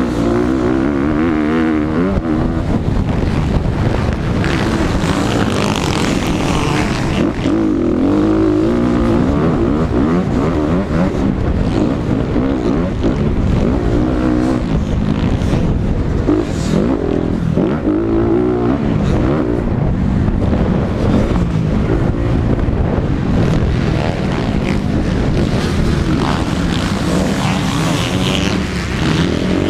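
Motocross dirt bike engine racing, revving up and falling back again and again as the bike accelerates and shifts, over a steady rush of noise.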